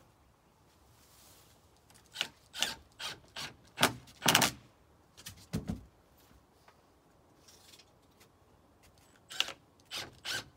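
Skirting trim being worked by hand: short scraping and rubbing strokes in bursts, a run of them from about two seconds in, a couple more in the middle and another few near the end.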